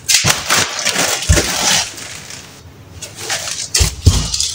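Plastic delivery bags full of groceries rustling and crinkling as they are handled on a kitchen counter, loudest in the first two seconds. Dull thumps as the loaded bags are set down, once about a second in and again near the end.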